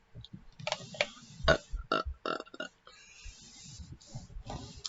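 A person burping several times in quick succession, a string of short loud burps, followed by a couple of seconds of softer hiss.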